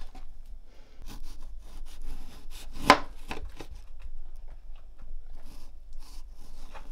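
A knife slicing a pear into thin rounds on a cutting board, with irregular soft cutting strokes and taps of the blade on the board. The loudest is a sharp tap about three seconds in.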